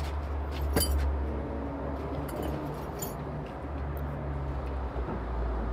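Chevrolet engine idling steadily, heard from inside the car's cabin, with a sharp metallic clink about a second in and a few lighter clicks after it.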